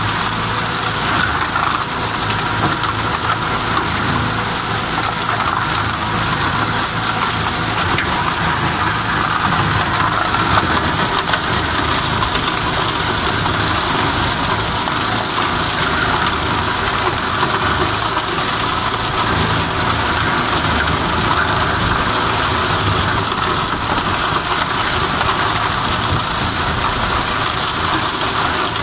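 Tractor running under load with a PTO-driven Kellfri WKL180 flail mower chopping through reeds and willow brush, a loud steady noise that does not let up.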